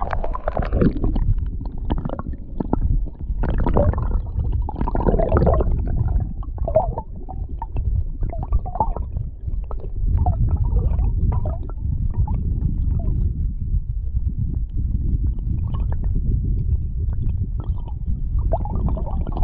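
Creek water heard through a camera held underwater: a muffled, steady low rumble with gurgling and bubbly squeaks and knocks now and then.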